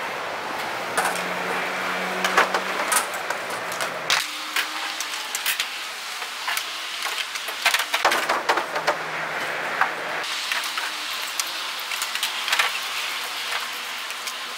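Aerosol spray-paint can hissing in spurts against a wall, with scattered sharp clicks and taps. A low hum sits underneath for the first four seconds and again about eight to ten seconds in.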